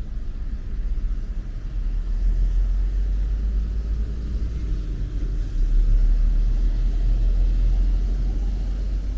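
Low rumble of road traffic passing, swelling about two seconds in and again just past the middle.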